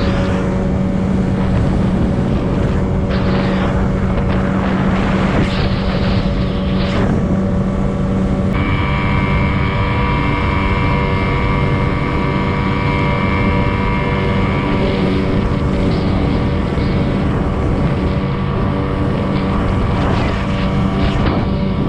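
Boat's outboard motor running steadily at speed, with wind rushing over the microphone. A higher steady whine joins in for several seconds from a little over a third of the way through.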